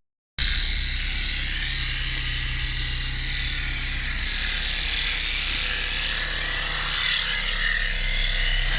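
Opel Vectra A's C18NZ 1.8-litre four-cylinder engine idling steadily, with its newly fitted used Bosch alternator, after a brief silent cut at the very start.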